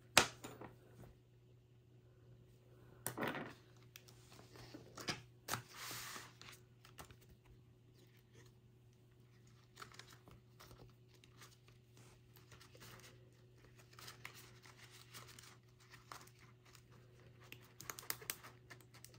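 Paper and laminated game sheets being handled: scattered rustling and crinkling with light taps and clicks, a few louder rustles in the first six seconds or so.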